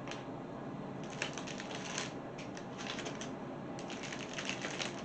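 Packaging being handled, crinkling and rustling in irregular spells of crisp crackles.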